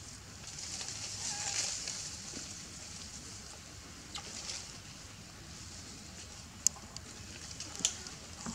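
Soft rustling and crackling, strongest early on and then fading, with two sharp clicks in the second half.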